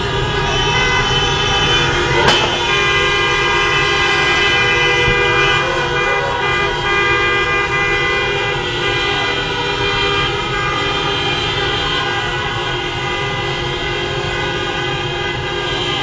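Many car horns honking at once in street traffic, held and overlapping throughout. A single sharp click cuts through about two seconds in.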